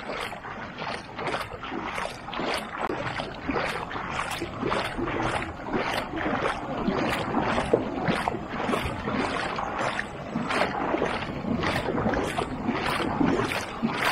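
Legs wading through knee-deep river water, sloshing and splashing in a steady rhythm of about two strides a second.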